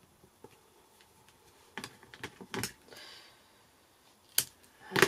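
Card stock and craft tools being handled on a work mat: a few light clicks and taps, a short rustle about three seconds in, and a sharper click near the end.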